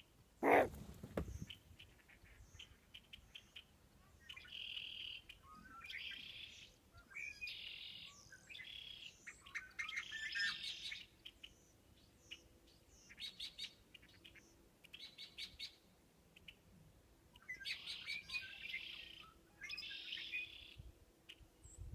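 Small birds chirping and trilling in short repeated phrases. About half a second in comes a single loud call that slides steeply down in pitch, the loudest sound here.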